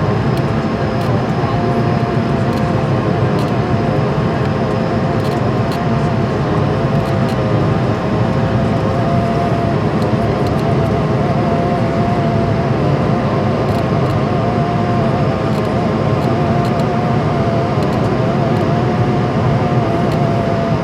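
Steady cabin noise of an Airbus A220-100 airliner: engine and airflow noise heard from inside the cabin, with a steady tone and a slightly wavering whine just above it.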